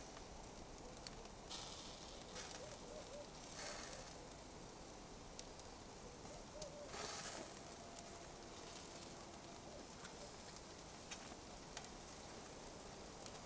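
Burning coals crackling faintly: scattered sharp ticks and pops over a soft steady hiss, with a few short louder hissing surges, the strongest about seven seconds in.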